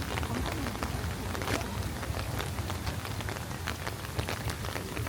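Steady rain falling, with many separate drops striking close by as sharp ticks over the even hiss.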